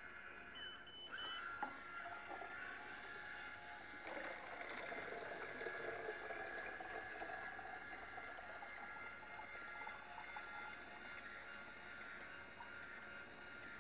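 C-41 bleach poured out of a film developing tank, a steady splashing pour that starts about four seconds in. A faint steady high whine runs under it.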